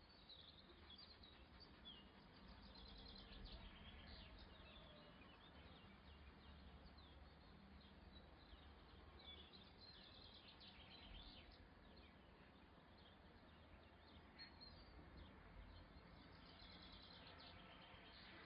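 Near silence: a low background rumble with faint, scattered bird chirps and short trills.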